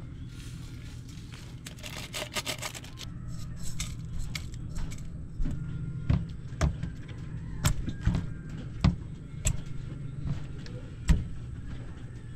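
Irregular knocks and clicks of cut fish pieces being laid into a metal cooking pot and the pot being handled, the sharpest knocks in the second half, over a steady low hum.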